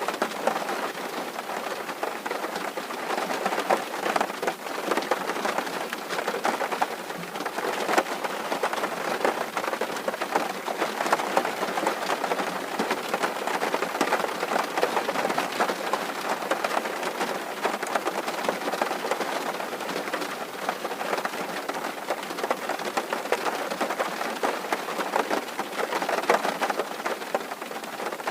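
Steady rain falling on a tin roof: a dense, even wash of drops with many sharper single drop strikes through it.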